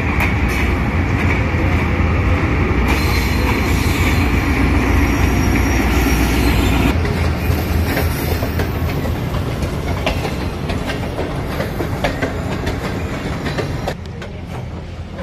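Pakistan Railways diesel locomotive and passenger coaches running slowly past at close range: a steady low engine and rolling rumble with high wheel squeal, then the coaches' wheels clicking over rail joints and points. It turns quieter about a second before the end.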